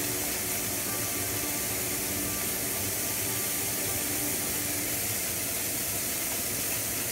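Wagyu skirt steaks sizzling steadily on a ripping hot griddle.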